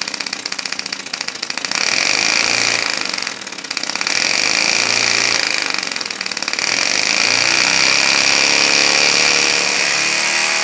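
3D-printed two-cylinder opposed compressed-air engine running fast and spinning its propeller. It starts as a rapid stream of air pulses, then about two seconds in becomes a louder, steady high whine that dips briefly twice.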